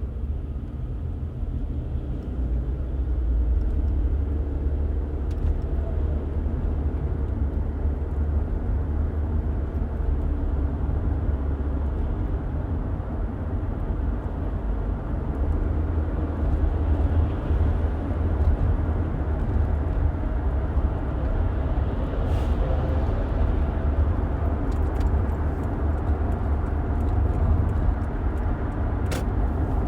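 Car driving at a steady pace: a continuous low road and engine rumble with tyre noise, plus a couple of faint clicks in the second half.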